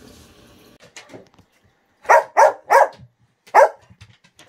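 A dog barking: four short, sharp barks, three in quick succession and then one more about a second later.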